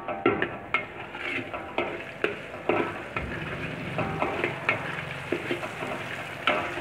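Shallots and garlic sizzling in oil in a steel wok, stirred by a metal spatula that scrapes across the pan in repeated strokes.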